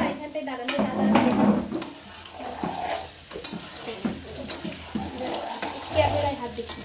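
Potatoes frying in oil in a pan with a steady hiss, and a spatula clicking against the pan several times as they are stirred.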